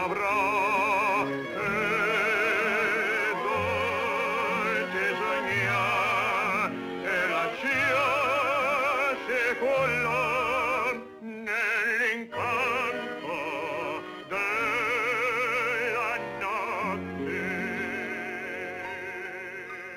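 Background music: an Italian-language love song sung in an operatic style, long notes held with wide vibrato over an orchestral accompaniment, growing quieter near the end.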